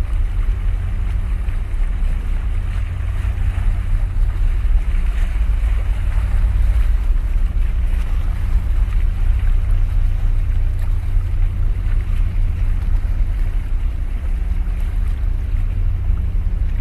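Wind buffeting the microphone with a steady low rumble, over sea water washing against the concrete tetrapods of a breakwater.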